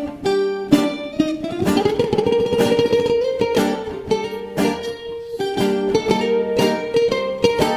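Bouzoukis playing a Greek-style improvisation: quick plucked notes, with a stretch of rapid tremolo picking on a climbing line about two seconds in.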